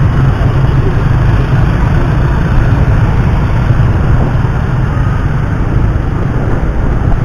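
Steady, loud, low rumble of a running vehicle engine, with no horn sounding.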